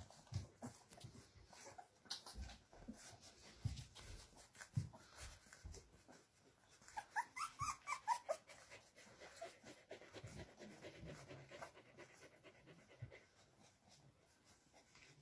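A dog whimpering quietly, a run of short high whines about halfway through, with faint scattered small knocks.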